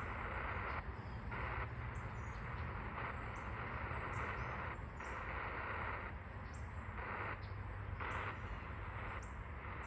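Spirit box scanning through radio frequencies: a run of static hiss that jumps to a new texture about every half second.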